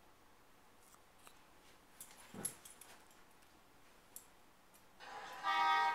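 Two puppies, a brindle mastiff and a Great Pyrenees, play-wrestling: a few soft clicks and rustles, a short low grunt about two and a half seconds in, and a louder high-pitched whine near the end.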